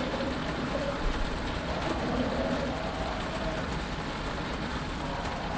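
Steady rain falling on a cockpit canopy over a low, even rumble, with faint wavering calls from swamp creatures drifting in and out, as in a Dagobah swamp ambience.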